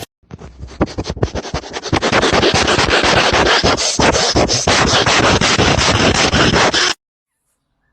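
Rapid, loud scratching and rubbing strokes that run together into a continuous rasp and then cut off suddenly near the end.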